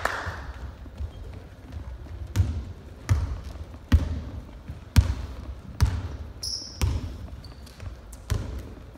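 Basketball dribbled on a wooden gym floor: about seven thudding bounces at uneven spacing, roughly one a second, each ringing briefly in the hall. A brief high squeak comes about six and a half seconds in.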